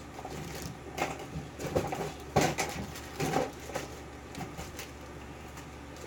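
Scattered clicks and taps of small metal tools and parts on a Dorma pin-tumbler lock cylinder being worked on, the loudest about two and a half seconds in.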